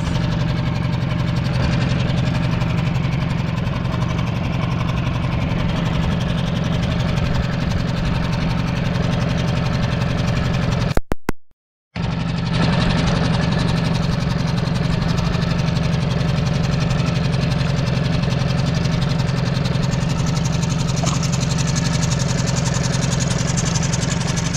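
Outboard motor running steadily at low speed, a continuous low drone. The sound drops out completely for about a second near the middle.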